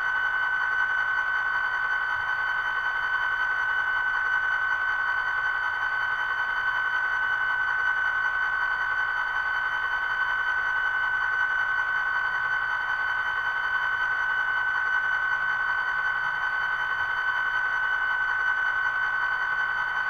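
Sound decoder in an HO scale SD40-2 model locomotive playing an EMD diesel idling after startup: a steady high whine over engine noise from the model's small speaker.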